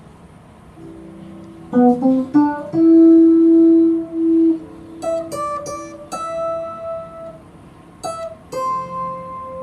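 Guitar playing a song's instrumental intro: plucked notes and chords, each left to ring out.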